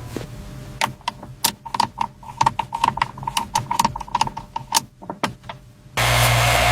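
An irregular run of sharp clicks, some two or three a second and at times faster, like small hard parts clicking or snapping. Near the end a loud, steady machine noise with a low hum starts suddenly.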